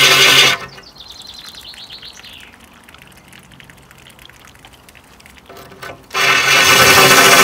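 DeWalt cordless drill grinding through aquarium glass under a trickle of cooling water, stopping about half a second in with its whine dying away. For about five seconds only water trickling from the hose onto the glass is heard, then the drill starts grinding into the glass again near the end.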